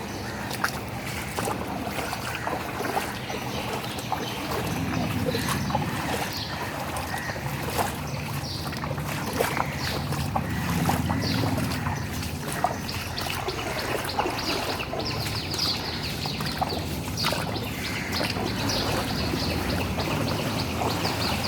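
Water sloshing and splashing on a flooded city road, with a steady rumble of traffic engines that swells for several seconds in the middle and many short splashy ticks throughout.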